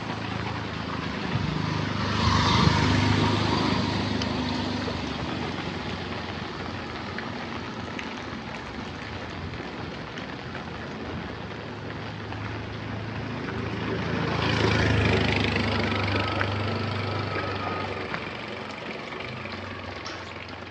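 Steady heavy rain, with a motor vehicle passing twice: engine and tyre noise swells and fades about two seconds in and again about fourteen seconds in.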